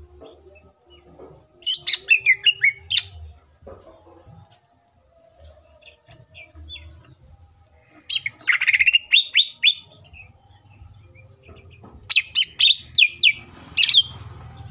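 Male greater green leafbird (cucak ijo) singing in three bursts of rapid short high notes, many sliding down in pitch: about two seconds in, eight seconds in and twelve seconds in.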